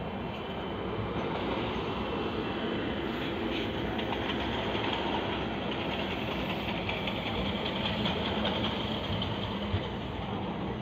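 Indian Railways passenger coaches rolling past at close range on the adjacent track: a steady rumble and clatter of wheels on rails.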